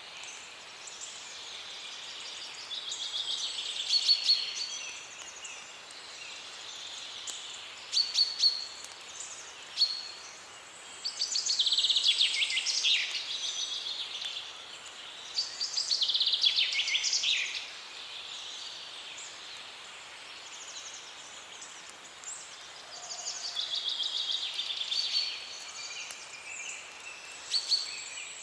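Wild songbirds singing, several voices overlapping in varied trills and chirps, some phrases falling in pitch at the end, over a steady outdoor hiss.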